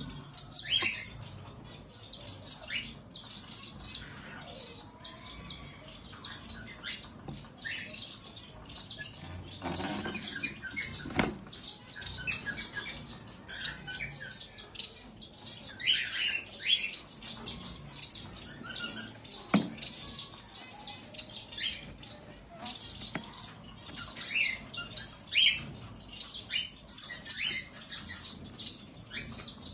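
Baby parrots chirping and calling in many short, high, repeated cheeps. A few sharp knocks sound in between, one about eleven seconds in and one, as loud as the loudest chirps, near twenty seconds.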